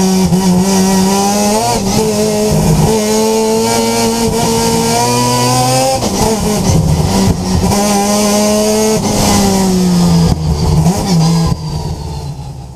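Mazda RX-7 Group C race car's rotary engine at hard throttle, climbing in pitch and dropping back at several gear changes, then fading out near the end.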